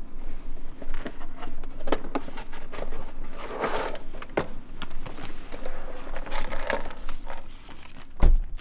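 A cardboard LEGO set box being opened and handled: small taps and scrapes of the box, and rustling as the paper instruction booklet is pulled out. A dull low thump near the end.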